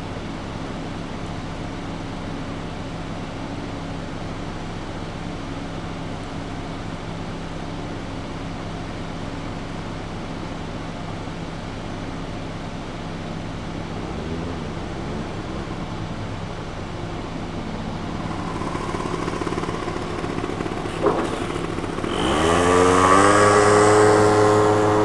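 A steady low engine hum. About 22 seconds in, a motorcycle comes in loud, its engine pitch rising and then holding steady as it rides by.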